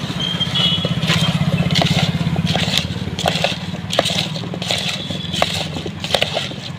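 A plastic spoon scraping and knocking against a plastic mug as chopped guava pieces are tossed with spices, in quick irregular clacks and scrapes. A steady low hum runs underneath.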